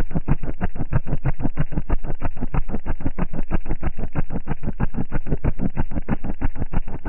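Wall of large car-audio subwoofers playing bass-heavy music loud inside the vehicle's cabin, in rapid even pulses several times a second.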